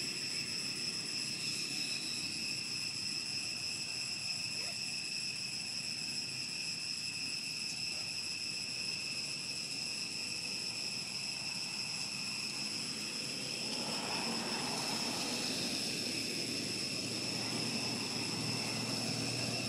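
Steady high-pitched shrill of insects, several constant tones held without a break. About fourteen seconds in, a broader rushing noise swells up beneath it and stays.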